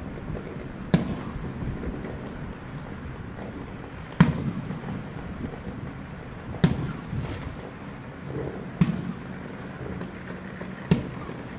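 Aerial firework shells bursting, five sharp bangs a couple of seconds apart, each followed by a rolling rumble of echo.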